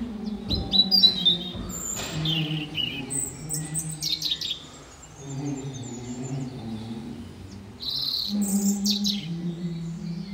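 Slow held chords on a small church organ, each sustained for a second or two, with birds chirping over it in short bursts; a couple of knocks about a second in.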